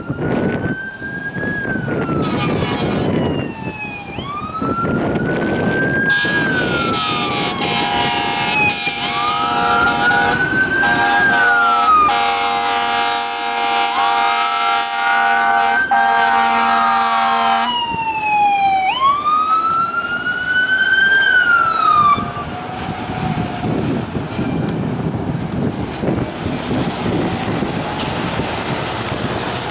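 Fire engine siren wailing, its pitch rising and falling over and over as the truck passes, with a long held horn blast over it for about twelve seconds in the middle. The siren cuts off about two-thirds of the way in, leaving the engine and road noise.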